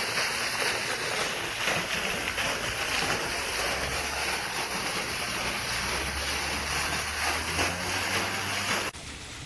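Steady rushing of water pouring from a submersible sump pump's discharge, with a low steady hum joining about a third of the way in. It cuts off abruptly near the end.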